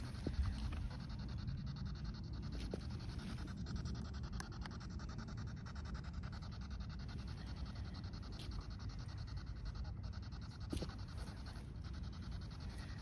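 P-SB7 spirit box sweeping through radio frequencies, giving a steady, rapidly chopped hiss of static, with a few brief clicks from the devices being handled.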